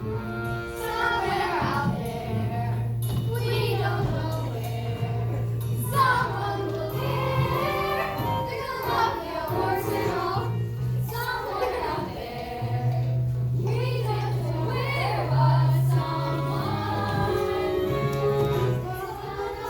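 Children's voices singing a musical-theatre song with accompaniment, over held low bass notes.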